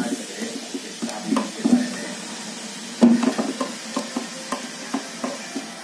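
Strands of besan batter sizzling as they deep-fry in hot oil in an iron kadai. Short scrapes and knocks run over the sizzle, several a second from about halfway through.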